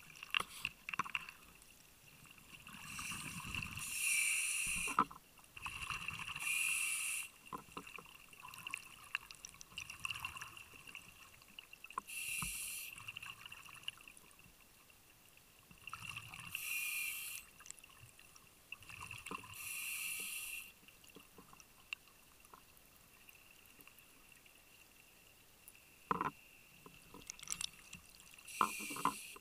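Scuba regulator breathing, heard through an underwater camera housing. A burst of hissing and bubbling comes every few seconds, with a faint steady high tone underneath and a few sharp knocks near the end.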